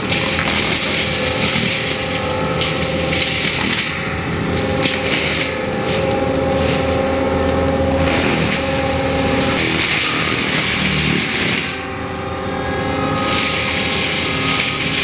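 ASV 135 compact track loader's diesel engine running under load with its forestry mulcher head, the pitch shifting as the load changes, with cracking and scraping of wood as the mulcher teeth chew through brush. The level dips briefly about twelve seconds in.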